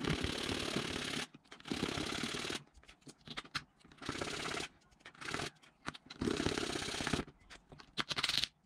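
A hand file rasping along the rough broken edge of a piece of copper-clad circuit board, in a series of strokes up to about a second long with short pauses between, evening out the edge after the board was snapped.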